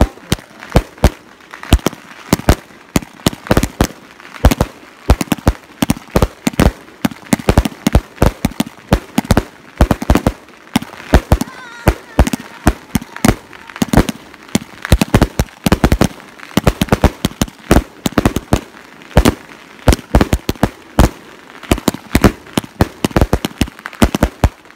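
Aerial firework shells bursting in quick succession: an irregular string of sharp bangs, several a second.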